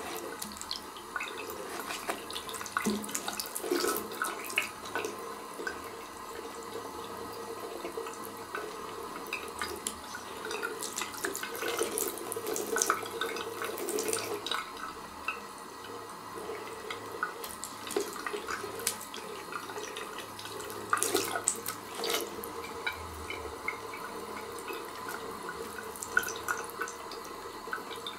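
A thin stream of tap water running steadily into a ceramic bidet bowl, with frequent sharp splashes and drips.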